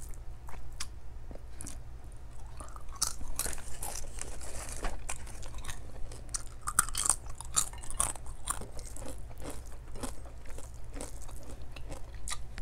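Close-miked chewing of rice and coconut-stewed mackerel eaten by hand: irregular wet mouth clicks and chewing noises, over a steady low hum.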